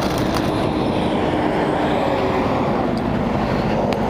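Steady vehicle noise with a faint engine tone that falls slightly in pitch partway through.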